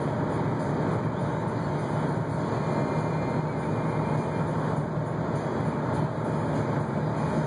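Steady cabin noise of a Jeep Grand Cherokee cruising at highway speed: a low, even hum from its 5.7 L Hemi V8 at about 2,000 rpm under road noise. The green indicator is lit, so the Multi-Displacement System has the engine running on four cylinders.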